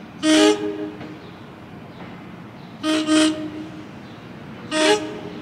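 Horn of an NJ Transit Arrow III electric multiple-unit train sounding short toots as it approaches: one just after the start, two quick ones about three seconds in, and one more near the end.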